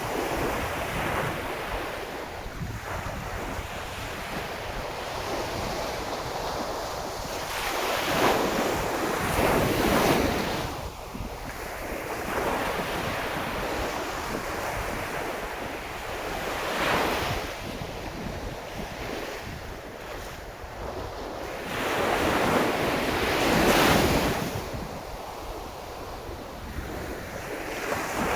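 Sea waves breaking on the shore: a steady wash of surf with several waves that swell up loudly and fall back, the biggest near the middle and again towards the end. Wind buffets the microphone underneath.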